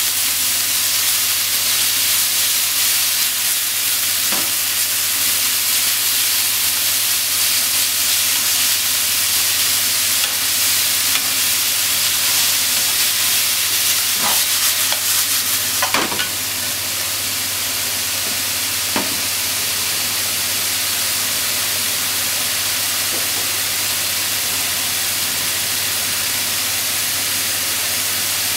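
Thinly sliced pork sizzling in a hot frying pan as it is stir-fried with chopsticks: a steady frying hiss with a few sharp clicks of the chopsticks against the pan. The sizzle eases slightly a little past halfway.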